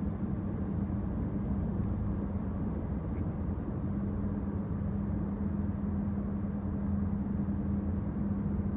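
Steady low rumble of a car's engine and road noise heard inside the passenger cabin while driving, with a steady low hum.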